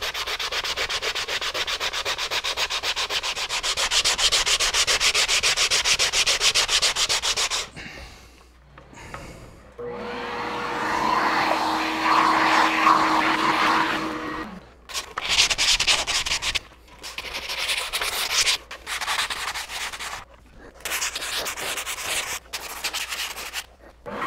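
A 60-grit sanding block scrubbing the epoxy-coated wood of a kayak seat, with fast, even strokes cutting back the fish-eye dimples. After a short pause a small motor hums steadily for about four seconds. Then the hand sanding goes on in short bursts of strokes with brief breaks between.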